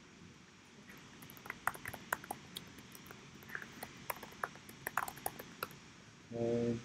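Computer keyboard typing: a quick, irregular run of key clicks as an email address and password are entered, followed near the end by a brief hummed vocal sound.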